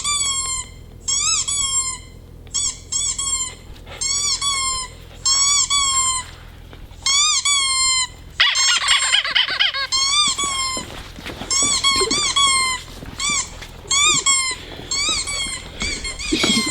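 Rubber squeaky toy squeezed over and over in quick bursts of two to four high squeaks, each rising and then falling in pitch, with short pauses between bursts. A brief rustling noise comes about eight and a half seconds in.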